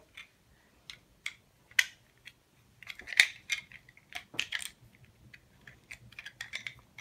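Toy food pieces and toy knife of a Velcro play set being handled: scattered light clicks and clacks, a little busier about three seconds in and again near four and a half seconds.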